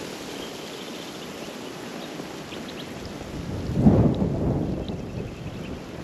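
Wind buffeting the microphone over a steady hiss, with a stronger gust about four seconds in.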